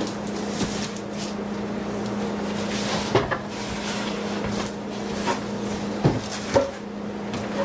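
Cardboard box and packaging being handled during unboxing: rustling with a few sharp knocks, the loudest about three seconds in and two more around six seconds in, over a steady low hum.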